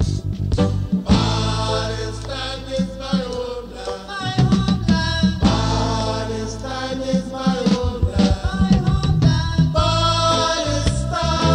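Libyan reggae song with singing over a full band and steady bass, played from a digitized 1993 cassette recording.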